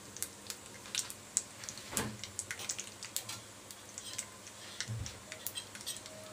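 Tadka crackling in hot oil in a kadhai: mustard seeds, cumin seeds, curry leaves and dried red chillies frying, with irregular small pops and sizzles.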